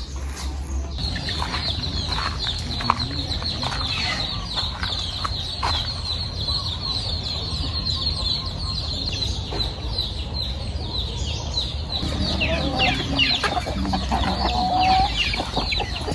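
Chickens clucking, with more calls near the end, over a steady high-pitched drone that starts about a second in.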